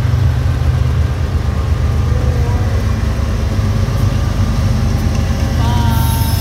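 Diesel-electric freight locomotives of a Norfolk Southern and BNSF lead consist passing at close range under power, their engines running with a loud, steady deep rumble.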